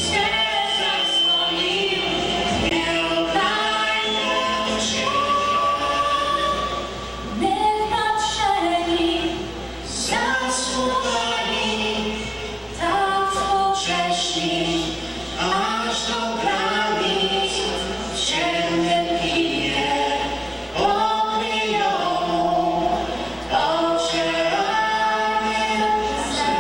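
A man and a woman singing a duet through handheld microphones, in long sung phrases.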